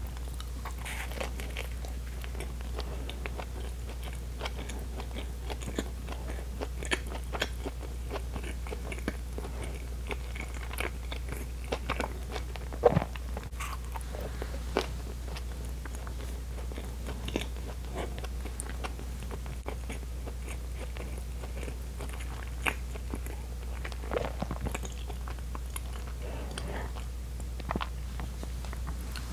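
Bread being bitten and chewed close to a clip-on microphone: soft crunches and wet mouth clicks, one sharper click about halfway through. A low steady hum runs underneath.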